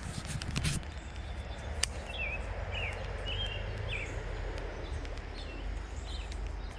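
A small bird chirps several times in short separate notes over a steady outdoor background hiss, with a few sharp clicks in the first two seconds.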